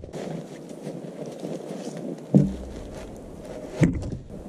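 Two dull knocks of wooden logs being laid in place, one a little over two seconds in and a louder-seeming one near the end, over a steady low background noise.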